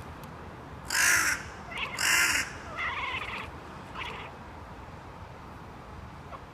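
Caw-like calls: two loud ones close by from a house cat imitating crows, then two fainter, duller caws from crows answering.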